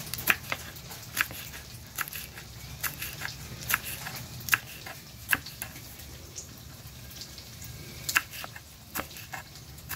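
Kitchen knife slicing a green chili pepper on a wooden cutting board: a sharp tap of the blade on the board with each cut, about one a second, pausing for a few seconds before two more cuts near the end. A steady low hum underneath.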